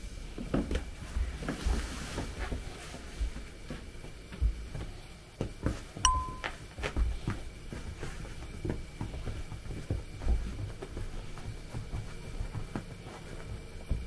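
Scattered light knocks and taps from a Kooikerhondje puppy playing, with a single bell-like ding about six seconds in.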